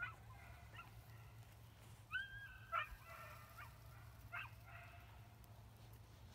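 A German wirehaired pointer puppy whining faintly in a string of short high notes while holding point, the longest about two seconds in: the eager whine of a young pup locked up on a bird.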